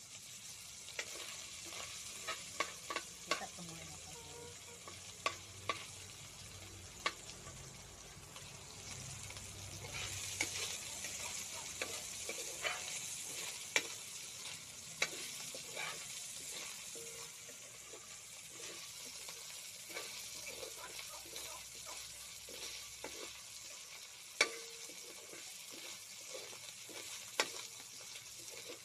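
Small pieces of meat frying and sizzling in a metal wok, with a metal ladle repeatedly clicking and scraping against the pan as they are stirred.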